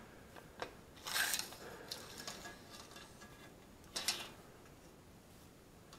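Faint handling noises of a tape measure being pulled out and laid along a bent metal rod: a light click about half a second in, a short rasp about a second in, and a sharper brief scrape at about four seconds.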